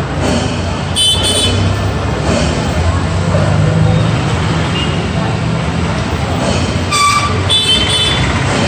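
Road traffic passing close by: a motorcycle engine hum swells in the middle, and short vehicle horn toots sound about a second in and again near the end, over a steady din of crowd chatter.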